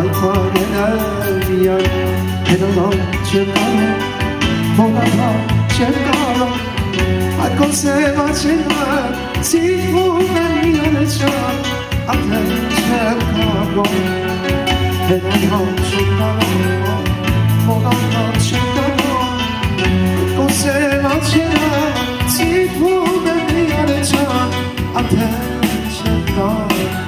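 Live male singing with keyboard accompaniment: a melodic vocal line over sustained chords and a steady bass.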